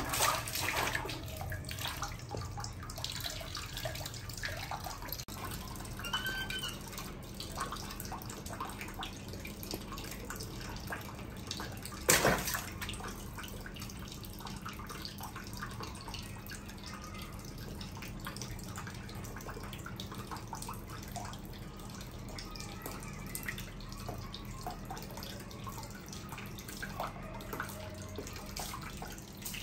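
Water splashing and dripping in a bath, with many small irregular splashes and a sharper, louder splash about twelve seconds in. A low steady hum joins after about five seconds.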